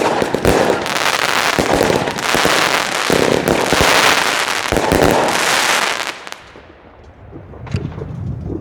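A 300-shot fireworks cake (Wolff 'Sledgehammer', Legacy Brand) firing, rapid shots running together into a dense, loud din that dies away about six seconds in, followed by a few last isolated pops.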